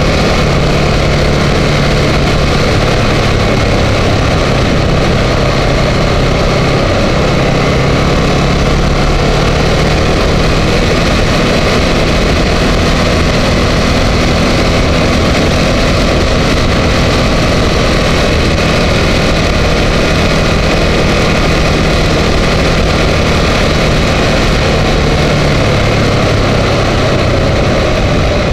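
Ducati Multistrada 1200 S's L-twin engine running at a fairly steady pitch while the motorcycle cruises through curves, heard from an onboard camera under a steady rush of wind and road noise.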